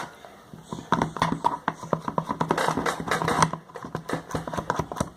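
Rapid, irregular clicks and small knocks, like close handling or mixing sounds, starting about a second in and stopping just before the end.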